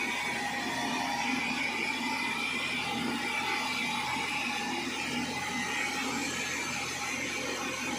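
Sawmill machinery running steadily: an even mechanical drone with a faint whine over it.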